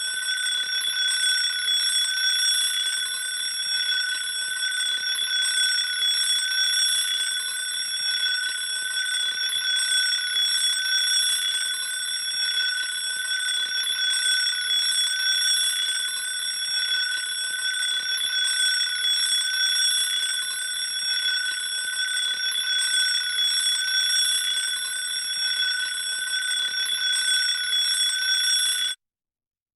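Alarm clock ringing as a wake-up alarm marking the end of a nap timer: a steady high-pitched ringing that wavers slightly in loudness, then cuts off suddenly near the end.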